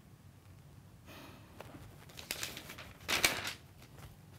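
Paper rustling as notebook pages and loose papers are handled on a desk: a few short rustles, the loudest about three seconds in.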